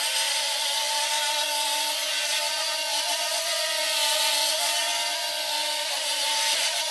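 Hubsan X4 H107L micro quadcopter's four small brushed motors and propellers whining as it hovers, with a steady hiss under a pitch that wavers and dips slightly near the end. The owner thinks one of its propellers is damaged.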